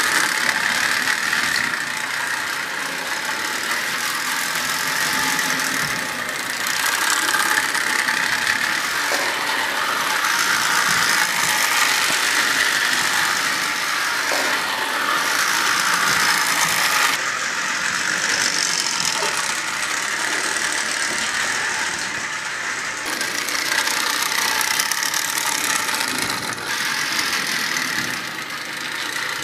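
Lionel 58 rotary snowplow running on three-rail O gauge track: the steady whir of its electric motor and gears with a rattle of wheels on the rails. The level rises and falls a little as it goes around the loop.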